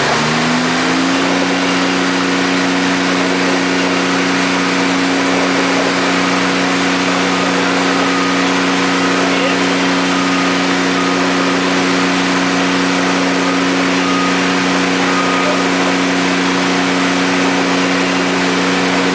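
An engine-driven welding generator picks up speed in the first second, then runs at a steady pitch with a constant hiss over it, as the welding circuit is made live.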